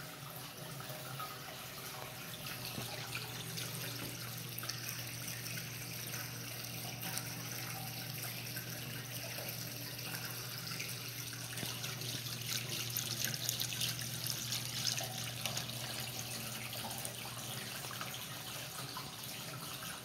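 Indoor stainless steel water wall running: a steady rush and splash of water falling down the panel into the stone-filled basin, with a low steady hum underneath.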